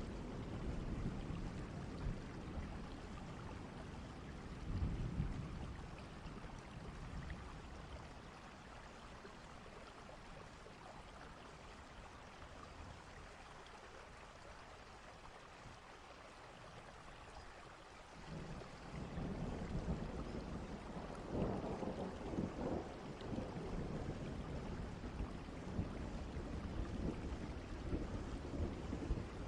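Steady rain with rolling thunder. Low rumbles come in the first few seconds and fade to a quieter stretch of rain, then a long peal of thunder builds a little past halfway and keeps rumbling to the end.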